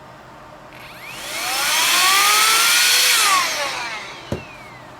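An aerosol cooling spray is hissed onto a chip in a burst of about three seconds, with a whistle that rises and then falls. The spray is chilling the part to find a heat-sensitive fault, which turns out to be a failing solder joint. A single sharp click follows just after the spray stops.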